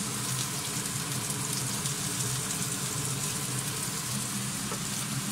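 Onions, ginger and tomatoes sautéing in a stainless steel saucepan: a steady sizzle.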